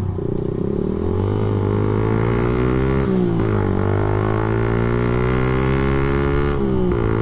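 Suzuki Satria FU's 150 cc four-stroke single-cylinder engine pulling under way, its pitch climbing and then dropping sharply twice, about three seconds in and near the end, as the rider shifts up.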